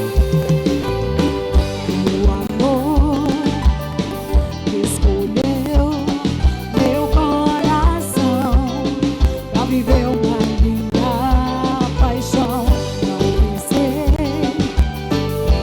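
A live band playing a mid-tempo song, with a steady kick-drum beat under a wavering lead melody.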